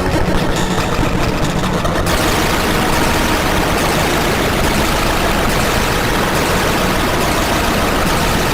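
Loud, steady, engine-like rumbling noise that fills out and turns harsher about two seconds in.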